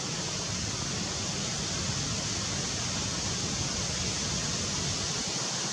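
Steady, even hiss of outdoor background noise, brightest in the high range, with no distinct sounds standing out.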